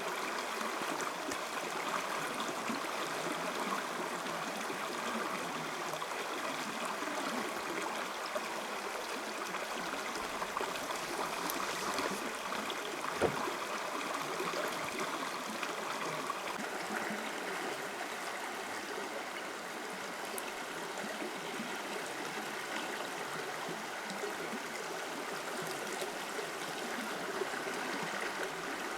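Steady rushing and trickling of a forest stream. A single sharp knock stands out about halfway through, with a few faint clicks elsewhere.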